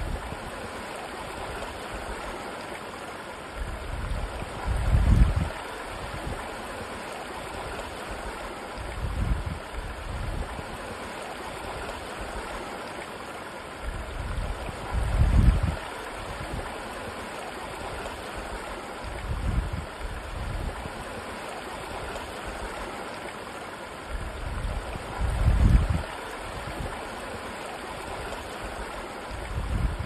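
Shallow waterfall running in a thin sheet over rock, a steady rushing splash. Brief low rumbles come and go every few seconds, the strongest about every ten seconds.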